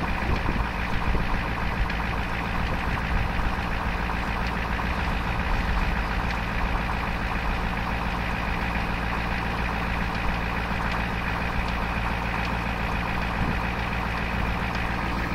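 Ford 7.3 IDI diesel V8 idling on a cold start with an occasional metallic tap, almost like something being hit by a hammer, among the steady diesel clatter. The tap comes at irregular intervals, which the owner suspects is a sticking valve from a weak spring or an injector opening early.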